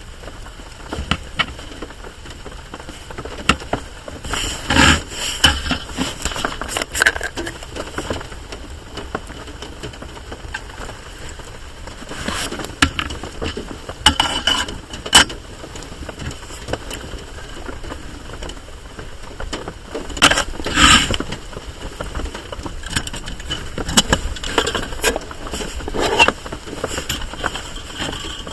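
Steady rain on a tarp, with many scattered sharp clicks and a few louder knocks, the loudest about five seconds in and again around fourteen and twenty-one seconds.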